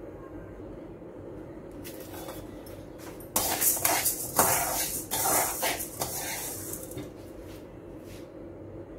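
A metal spoon stirring and scraping dry lentils around an aluminium kadai as they are dry-roasted. The scraping and rattling begins a little over three seconds in and lasts about three seconds.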